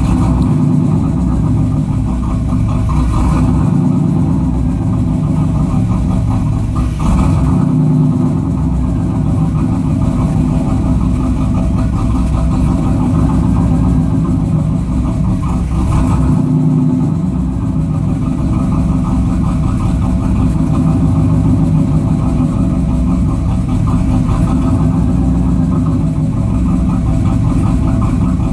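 1992 Chevrolet Camaro engine idling rough, running steadily with a few brief irregular flares in the sound.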